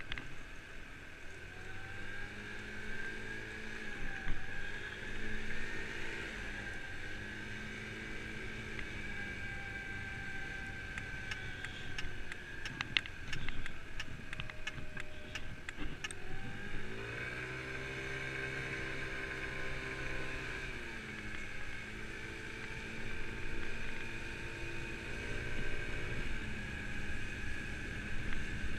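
Kymco Agility 50cc scooter's single-cylinder engine running on the move, its pitch rising and falling as the throttle is opened and closed, with a steady high whine over it. A run of regular clicks, about two a second, comes around the middle.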